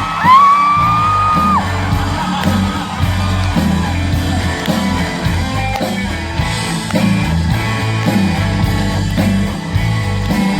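Live pop-rock band playing with a steady beat and singing, with a high held vocal cry lasting about a second near the start.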